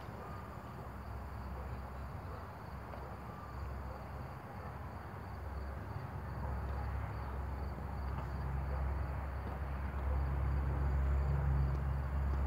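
Outdoor background noise: a steady low rumble that grows louder in the second half, with a faint steady high-pitched tone above it.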